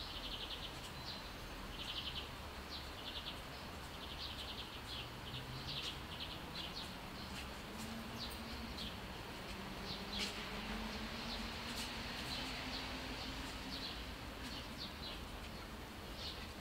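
Small birds chirping in short, rapid trills that recur every second or so, over a steady low background hum.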